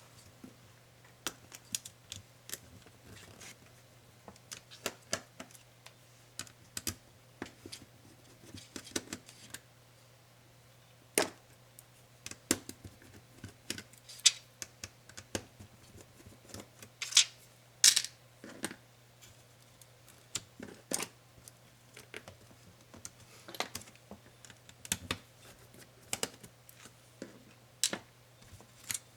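Irregular light clicks and taps of small hand tools and loose laptop parts being handled during a laptop teardown. A few sharper clicks come around the middle, over a faint steady low hum.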